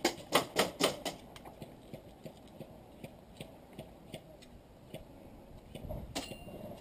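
A quick run of about five loud sharp clicks in the first second, about four a second, then fainter scattered ticks, with a short rustling burst near the end.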